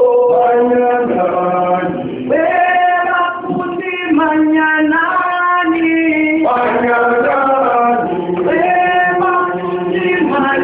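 A group of male and female voices singing together in harmony, in phrases of about two seconds with long held notes, with no instruments heard.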